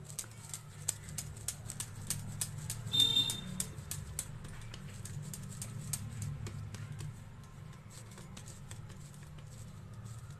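Hands pressing and rolling a soft ball of pizza dough over a steel bowl: a run of quick, soft clicks and slaps, several a second, with a brief metallic clink about three seconds in. A steady low hum runs underneath.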